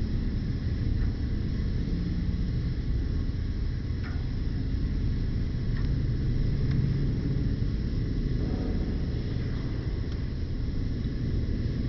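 Campfire burning: a steady low rumble with a few faint, short crackles.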